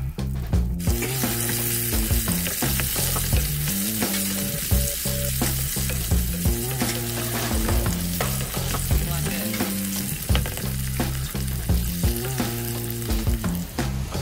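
Diced potatoes frying in hot oil in a pan, sizzling steadily, with a spatula scraping and stirring them. The sizzle thickens about a second in.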